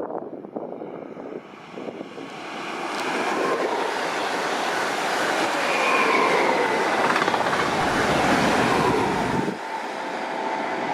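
A train running along the tracks through a station. The rail noise grows louder over a few seconds and drops off sharply near the end. A faint high whine dips in pitch as the train goes by.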